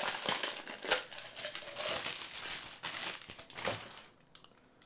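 Plastic wrapping crinkling as a prize tumbler is taken out of its packaging, with one sharper crackle about a second in. The crinkling dies away near the end.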